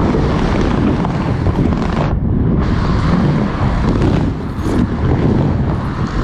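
Skate wheels rolling through a skatepark bowl: a loud, continuous rumble, with wind buffeting the microphone as the skater moves.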